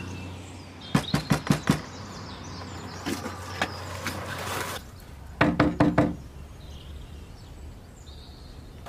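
A fist knocking on a door in a quick run of about six knocks. After a pause there is a second quick run of knocks on a glass window pane.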